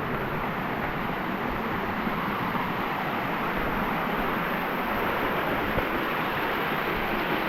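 Waterfall's water rushing steadily over rock, an even unbroken rush.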